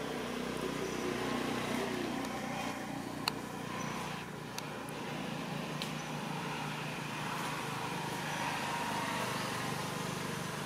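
Steady low rumble of road traffic, with a few faint sharp clicks about three to six seconds in.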